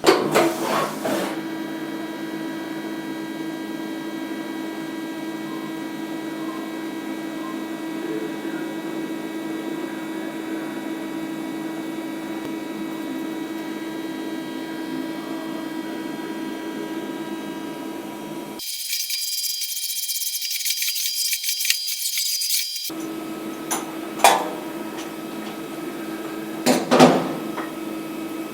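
CNC milling machine running with a steady hum of several constant tones. For a few seconds past the middle the sound turns thin and hissy, and a few sharp knocks come near the end.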